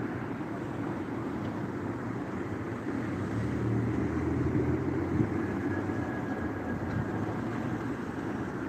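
Steady city street noise with a vehicle running low and growing louder as it passes, loudest around the middle.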